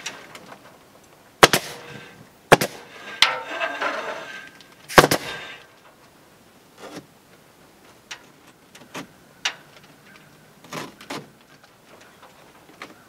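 Pneumatic crown stapler firing staples: four sharp shots in the first five seconds, then several fainter clicks. Between shots, the crinkly rustle of a house-wrap membrane being unrolled and pressed against the wall.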